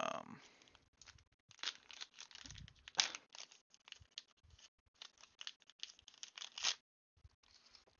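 Digimon card game booster pack wrapper being torn open and crinkled: a run of irregular rips and crackles that stops about seven seconds in.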